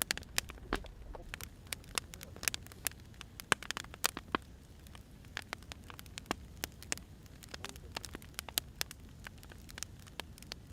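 Wood fire crackling: irregular sharp pops and snaps, several a second, over a low steady hiss.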